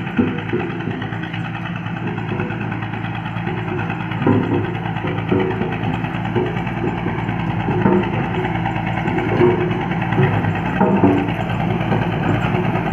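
A vehicle or machine engine running steadily throughout, with a constant low hum.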